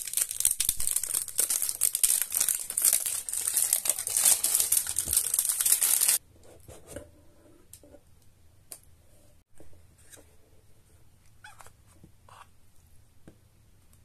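Cellophane wrap being peeled and torn off a perfume box, a loud, dense crinkling and crackling that stops abruptly after about six seconds. Only a few faint knocks and rustles of the cardboard box being handled follow.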